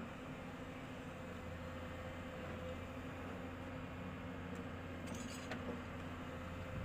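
Heavy construction machinery's diesel engine running steadily, with a brief metallic clinking about five seconds in.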